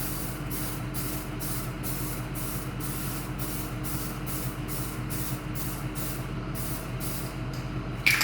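Filler primer being sprayed in quick short bursts, about two to three hissing pulses a second, as spots on a bumper are primed. A steady low machine hum runs underneath, and there is a sharp sound just before the end.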